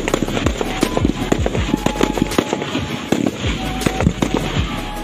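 Fireworks display: a rapid barrage of aerial shell bangs and crackling, many reports a second with no break.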